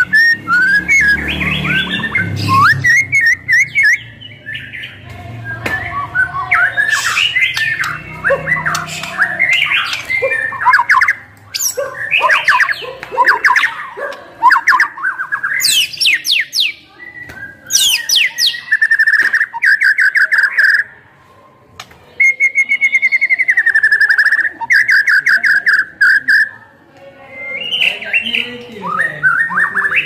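White-rumped shama (murai batu) singing nonstop, a loud, varied song of whistles, sweeps and trills packed with mimicked phrases. In the second half come long runs of fast repeated notes, with a few short breaks.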